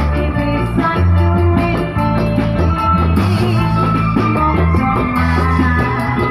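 Loud music with a strong stepping bass line, steady drums and a held melody line.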